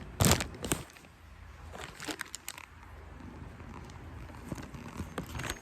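A sharp knock or two, then scattered small clicks and rustling as items are handled and moved about in a cardboard box.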